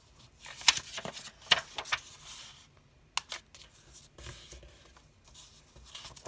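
Sheets of old paper rustling and sliding against each other as they are handled, with a few sharp crackles in the first couple of seconds, a couple of light ticks a little later and fainter rustling near the end as a sheet is smoothed and folded.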